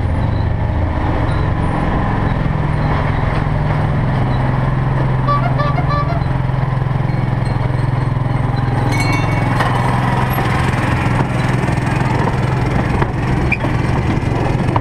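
Ride-on miniature park train passing close by: a steady engine hum with wheels rolling on the narrow-gauge rails as the locomotive and its passenger carriages go by.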